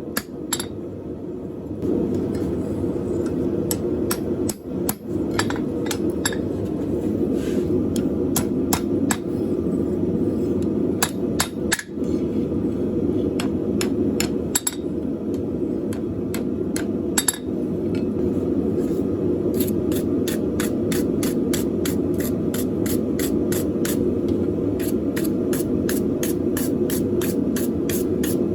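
Hammer blows on a hot steel bar at the anvil: scattered strikes at first, then a fast even run of about three strikes a second in the second half, over a steady hum.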